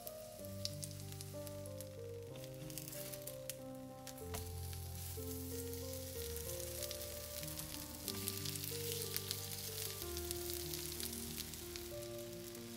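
Food frying in oil in a pan, sizzling and crackling steadily, over background music of slow held notes.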